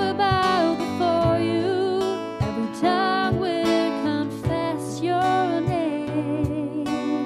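Music: a worship song sung with vibrato to a strummed acoustic guitar, the strums falling at an even beat.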